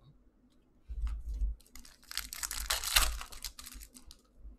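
A foil trading-card pack wrapper being torn open and crinkled by hand. It makes a rapid run of crackles that is loudest a little past the middle, with a few dull handling bumps about a second in.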